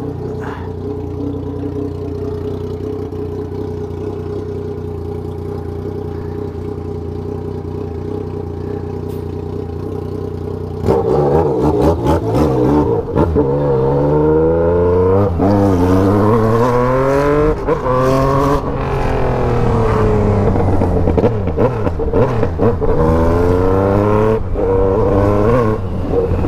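Yamaha MT-09's three-cylinder engine, ECU remapped, ticking over steadily at low revs for about eleven seconds. It then gets suddenly louder as the bike pulls away, the revs climbing and dropping several times through gear changes, easing off near the middle and picking up again.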